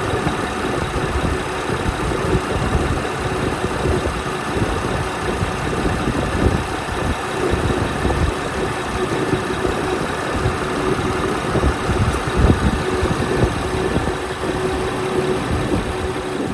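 Car engine idling steadily, with a faint steady whine over the running.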